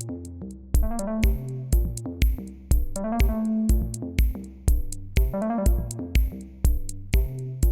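Electronic music: a drum-machine beat of about two kicks a second under synth bass and keyboard notes.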